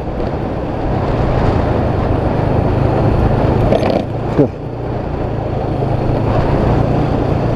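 Motorcycle riding along with its engine running steadily under wind rush on the microphone; the engine note drops briefly about four seconds in.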